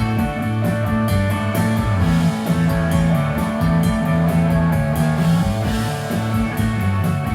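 Rock music with guitar, bass and drums: a steady beat under held bass notes.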